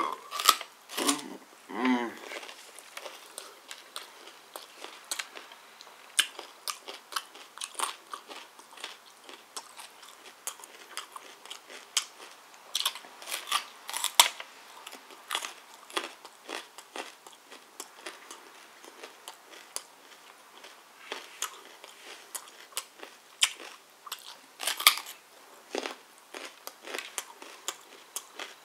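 Crunching bites into a whole carrot and chewing, heard as many irregular sharp cracks.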